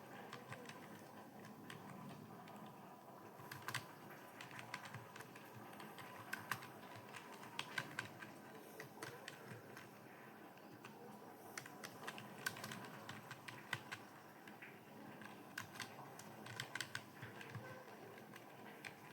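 Computer keyboard being typed on in irregular bursts of key clicks, a fast run of keystrokes in a typing speed test.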